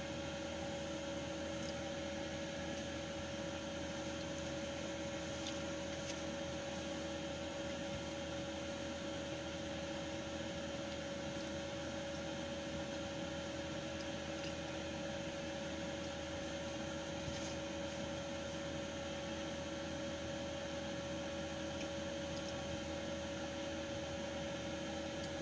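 A steady electrical or mechanical hum with two steady tones over a faint hiss, unchanging throughout.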